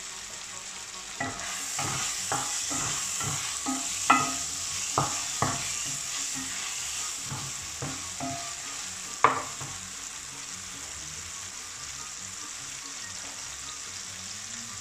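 Diced chicken frying in oil in a frying pan, sizzling steadily, while a wooden spoon stirs it, knocking and scraping against the pan for the first nine seconds or so; after that only the sizzle continues.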